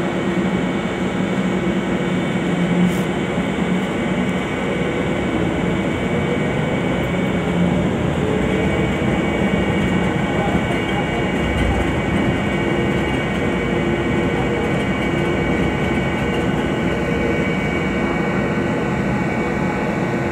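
Bombardier airport people-mover tram running along its guideway, heard from inside the front cab: a steady rumble with several whining tones, some of which glide upward partway through.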